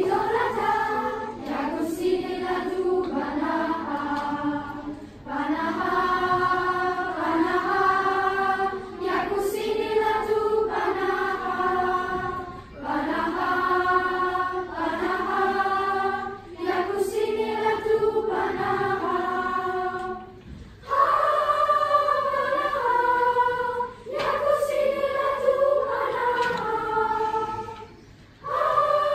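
A choir of children and teenagers singing together, in sung phrases of a few seconds with short breaks between them.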